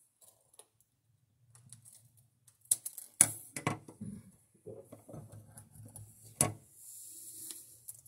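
Single-serve drink-mix stick packet being handled and opened: crinkling with a few sharp clicks. Near the end comes a steady hiss as the powder pours into a glass bottle of water.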